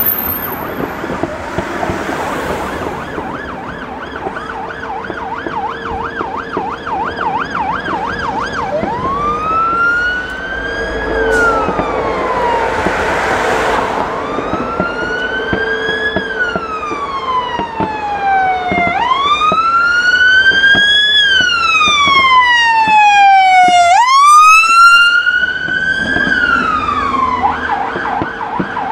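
Electronic siren cycling between modes: a fast warbling yelp, then about four slow wails that each rise and fall over roughly five seconds, switching back to the fast yelp near the end.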